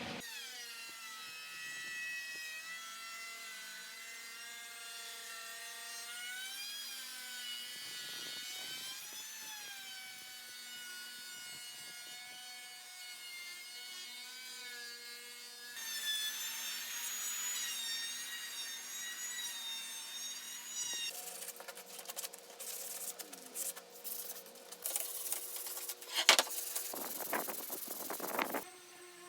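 An electric woodworking power tool runs with a motor whine whose pitch rises and falls as the load changes. A stretch of rough cutting noise comes in around the middle, and the last part holds irregular bursts of tool-on-wood scraping.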